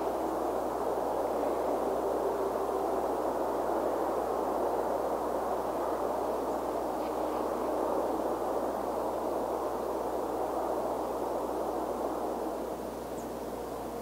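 Steady outdoor background noise, an even rushing hiss with no distinct events, easing slightly near the end.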